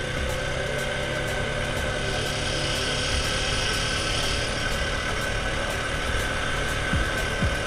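Honda Foreman 500 ATV's single-cylinder engine running steadily as the quad rides along a dirt track. A few short low thumps near the end.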